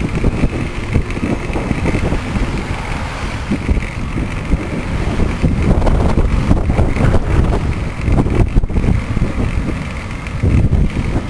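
Loud, unbroken wind buffeting a microphone on a moving bicycle, mixed with the rumble of road traffic.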